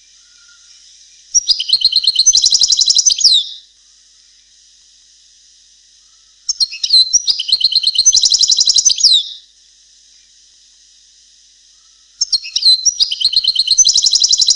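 European goldfinch singing a Palestinian-style song, the kind of tutor recording played to teach young goldfinches. Three song phrases of rapid high trills and notes, each about two to three seconds long and roughly five seconds apart, with a faint steady hiss between them.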